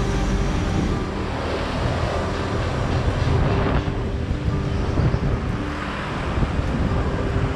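Small motorcycle engine running at low speed, with wind rumbling on the action camera's microphone.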